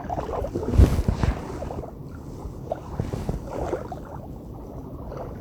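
Gusty wind buffeting the microphone with a low rumble that rises and falls, with a soft thump about a second in and a few faint knocks.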